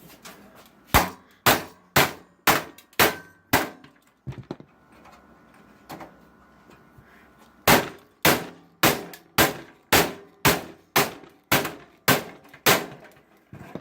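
Hammer blows on a metal computer part, clanging with a short ring: a run of about six strikes, a pause, then about ten more, roughly two a second.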